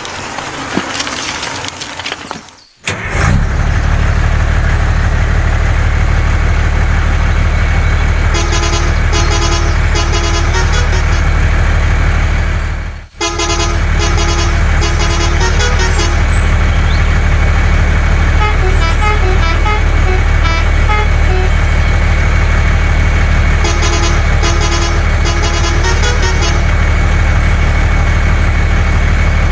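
Steady low hum of a truck engine, with a multi-tone truck horn tooting short runs of notes four times. The sound drops out briefly twice, about three seconds in and again near thirteen seconds.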